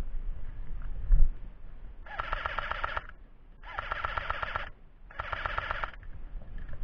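Airsoft gun firing on full auto in three rapid rattling bursts of about a second each, with short pauses between. A low thump about a second in.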